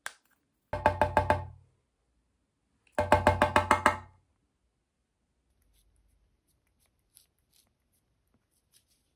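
Two quick runs of hollow, wood-block-like knocks, about seven a second and each run about a second long, a second or so apart: a percussive sound effect standing for flicking a syringe to clear it of air bubbles.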